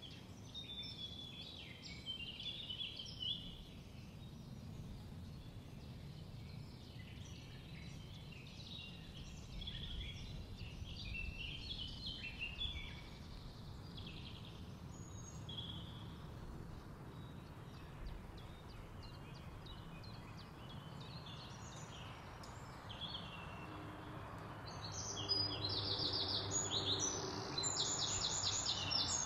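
Outdoor ambience of small birds chirping and singing over a low, steady rumble. Near the end a louder song of fast, evenly repeated notes comes in, while a low hum grows louder underneath.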